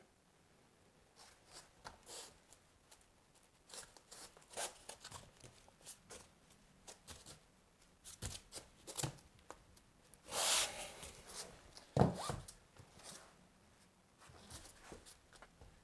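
Quiet, scattered handling sounds as a foam shower curb is set and pressed into thinset on a foam shower pan: light scrapes and rubs of gloved hands, a longer scrape about ten and a half seconds in, and a sharp knock about twelve seconds in.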